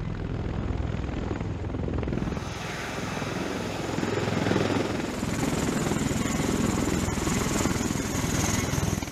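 MV-22 Osprey tiltrotor's proprotors and turboshaft engines running as it lands: a steady low rotor drone that turns into a brighter rush of engine noise with a faint high whine about two seconds in.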